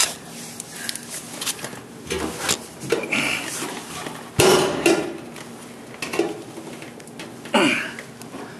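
Scattered metallic clanks and knocks from a sheet-metal car body panel being handled and pushed into place, with one sharp knock about four and a half seconds in.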